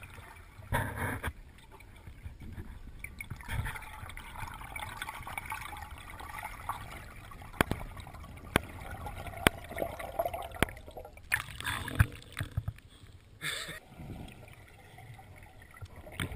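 Underwater sound through an action camera's housing: muffled gurgling and bubbling, with a few sharp clicks and knocks in the middle and short louder rushes of bubbles about a second in and again near the end.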